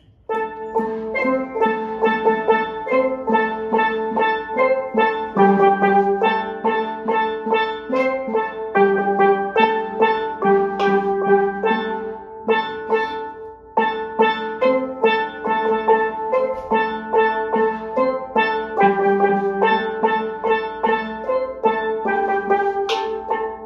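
A steel drum ensemble playing a tune on steelpans, with struck, ringing notes in a steady beat. The phrase breaks off briefly about halfway through and is played again from the top.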